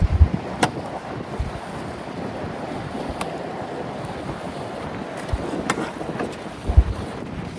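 Wind buffeting the microphone in low gusts, loudest at the start and again near the end, over a steady rush of wind and choppy river water. A few sharp clicks come through it.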